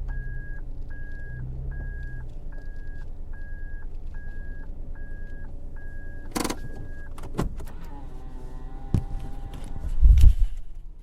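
Inside a car, a warning chime beeps about twice a second over a low engine rumble, then stops about seven seconds in. A few clicks and a short motor whir follow, and a car door thumps shut near the end.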